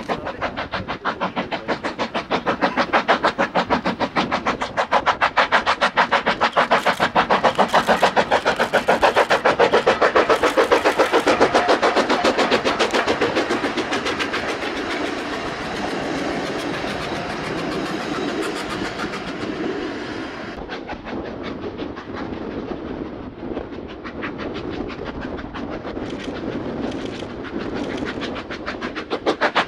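Narrow-gauge steam locomotive working a train past, its exhaust beating in rapid, even chuffs. The chuffs are loudest a third of the way in, then fade and carry on quieter.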